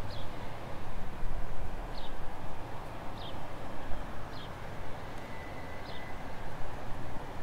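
Outdoor ambience: a steady low rumble, with a bird giving a short, high, falling chirp over and over, about every second and a half.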